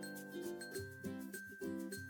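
Background music: a light, bouncy instrumental tune with plucked notes and a bell-like chime.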